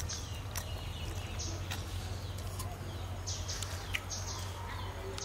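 Birds chirping in short, scattered calls over a low steady hum, with a few light clicks.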